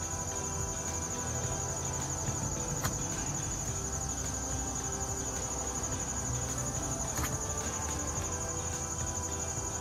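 A steady, high-pitched insect chorus trilling without pause, with faint music underneath and two short clicks, about three and seven seconds in.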